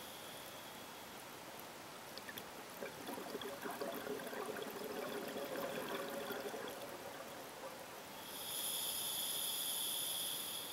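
Scuba diver's regulator breathing underwater: a bubbling exhalation from about three to seven seconds in, then a hissing inhalation near the end.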